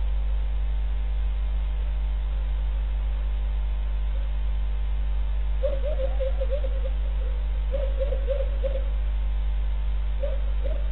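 Steady electrical mains hum on a security camera's low-quality audio line. Over it, an animal cries faintly in short wavering calls, in three groups about six, eight and ten seconds in.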